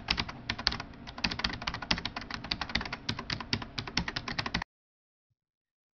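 Fast, irregular clicking like keyboard typing, about ten clicks a second, over the intro title animation. It cuts off abruptly about four and a half seconds in, leaving dead silence.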